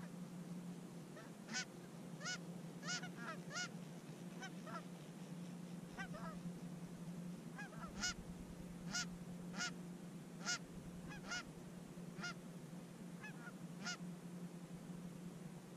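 Geese honking: a long run of short, separate calls, thicker and louder from about eight seconds in, over a steady low hum.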